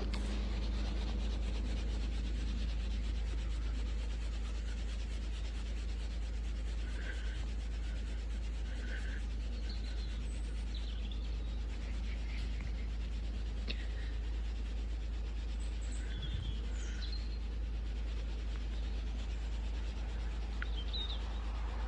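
Steady low outdoor rumble, like wind on the microphone, with a few short bird chirps scattered through it.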